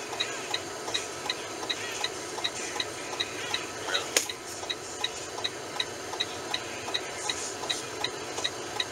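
Regular ticking of a truck's indicator flasher, about two to three ticks a second, over a low steady cab hum. One sharper click about four seconds in.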